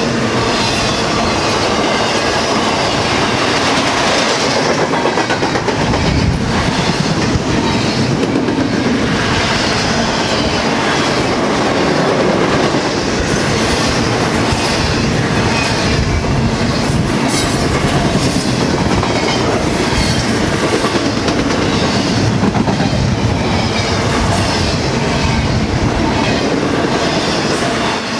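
A BNSF train's cars rolling past at track side, a steady loud rumble with repeated clacks as the wheels cross rail joints.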